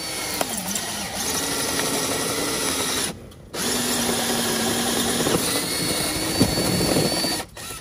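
Power drill boring a small pilot hole through an exterior house wall, its motor pitch dipping and recovering as the bit bites. It runs for about three seconds, stops briefly, then runs again until shortly before the end.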